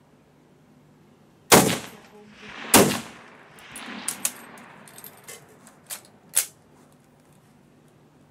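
Two loud rifle shots about a second and a quarter apart on a covered firing line, each trailing off in echo, followed by several quieter sharp clicks and knocks.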